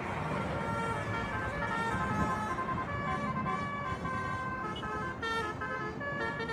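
Telolet multi-tone bus horn, roof-mounted trumpets, playing a tune of stepped notes with several tones sounding at once. It plays over a steady rumble of engine and road noise.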